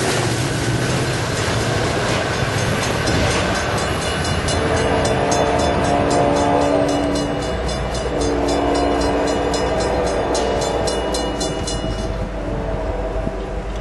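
Diesel locomotive's multi-chime air horn sounding two long blasts, each several seconds long with a short gap between, over the steady rumble of a passing train.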